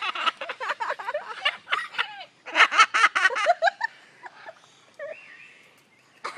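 Umbrella cockatoo mimicking human laughter in rapid 'ha-ha-ha' bursts, a long run at first and another about two and a half seconds in, then tailing off into quieter sounds.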